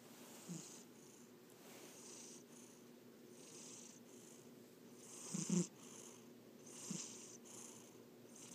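Sleeping pet cat snoring faintly: a steady rhythm of soft hissing breaths, one in-and-out about every second and a half, with a louder snort about five and a half seconds in.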